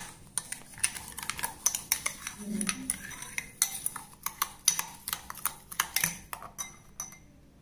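A utensil beating egg, sugar and milk in a bowl, with quick irregular clicks against the bowl that stop near the end.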